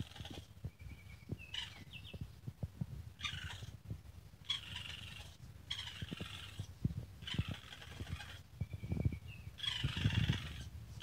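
Baby raccoon chittering in a run of short, buzzy bursts, roughly one a second, with a couple of brief high trills. Light clicks and taps sound underneath.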